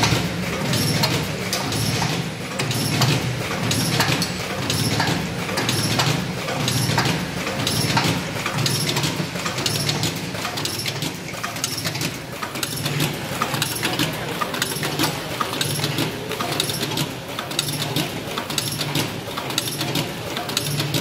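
Automatic auger powder-filling pouch packing machine running, its fill-and-seal cycle repeating about once a second with clicks and clatter over a steady motor hum.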